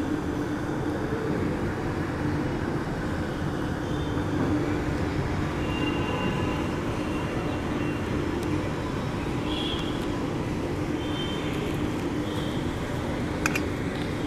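Steady rumbling background noise with a low hum, a few brief high-pitched tones in the middle, and a sharp click near the end.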